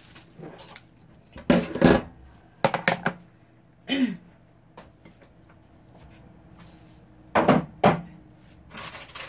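Sporadic knocks and clatter of kitchen things being handled and set down, a few sharp bumps in small clusters with quiet pauses between.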